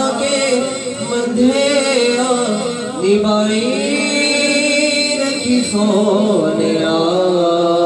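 A male voice sings a naat in Urdu/Punjabi, drawing out long, bending held notes, over a steady low hum.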